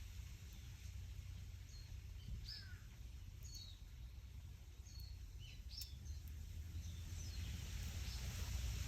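Wind in the trees: a steady low rumble with leaves rustling, the rustle growing near the end. Small birds chirp over it, a scatter of short high calls through the middle.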